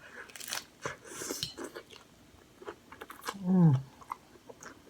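Crunchy bites and chewing of a hard taco shell, in irregular crackly bursts, with a short vocal sound falling in pitch about three and a half seconds in.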